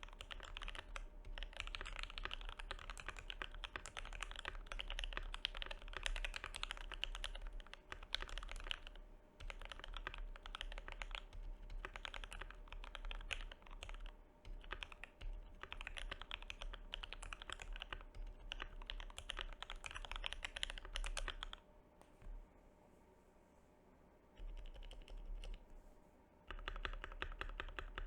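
Fast typing on a GMMK Pro mechanical keyboard with H1 linear switches, an aluminium plate, case and PCB foam and PBT keycaps: dense runs of key clacks. The typing breaks off briefly a few times, with a longer lull about three quarters through.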